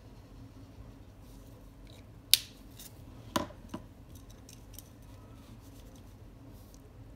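A pink plastic highlighter being put away: a sharp plastic click a little over two seconds in, then the highlighter laid down on the desk with a knock and a lighter second knock. Faint pen ticks around them.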